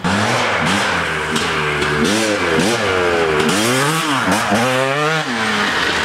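2017 TM Racing MX250 250cc two-stroke dirt bike riding past, its engine revving up and down again and again, with a deep drop in revs and a climb back up about four seconds in.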